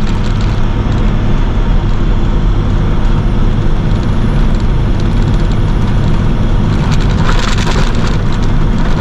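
Box truck's engine running and tyre and road noise inside the cab while driving at steady speed, a loud, even low drone. A brief hiss rises about seven seconds in.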